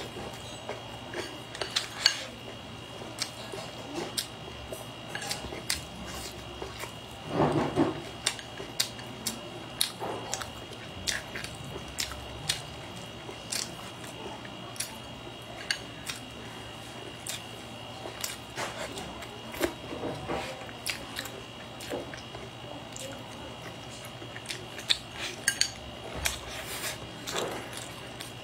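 Eating sounds: wooden chopsticks clicking and tapping against a bowl, with chewing and biting of braised fish and rice, many short sharp clicks at uneven intervals. A louder, duller sound comes about seven seconds in, over a steady faint hum.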